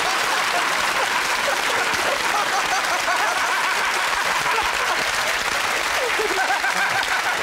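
Studio audience applauding, a steady wash of clapping with scattered laughter and voices through it.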